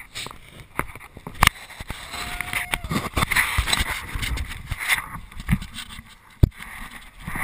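A hand bumping and rubbing against a body-worn action camera's housing, with irregular sharp knocks and scraping; a short steady tone sounds briefly about two seconds in.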